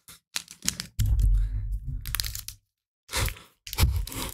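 Crackling, tearing and crunching of handled packaging, in irregular sharp bursts, with a loud low thumping stretch about a second in, like the microphone being bumped.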